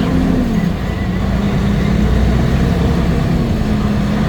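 Truck engine running steadily under way, its pitch dropping about half a second in, then holding steady.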